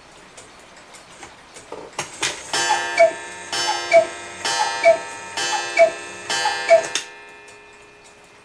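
Vintage Regula August Schwer cuckoo clock ticking, then calling cuckoo five times, about one call a second, each a two-note whistle, high then lower, over the breathy hiss of its bellows.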